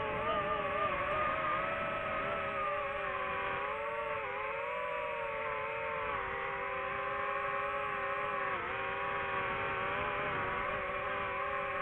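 DJI FPV drone's motors and propellers whining steadily in flight. The pitch wavers, with brief dips about four seconds in and again near nine seconds.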